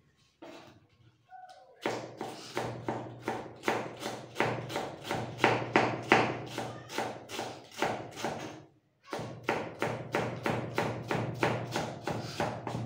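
Kitchen knife chopping cabbage into shreds on a plastic cutting board: a steady run of sharp chops, about three a second, with a short break about nine seconds in.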